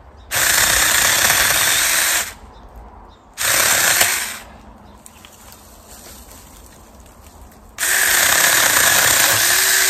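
Saker 20-volt battery mini chainsaw cutting a tree limb overhead in three bursts: about two seconds, then a short one, then a longer run near the end. The blade gets a little pinched in the cut.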